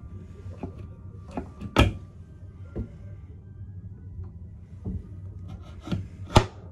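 A narrow wooden cupboard door, a locker holding life jackets, is pulled open by its knob with a sharp knock about two seconds in. A few small clicks follow, then a second sharp knock near the end as the door is pushed shut. A steady low hum runs underneath.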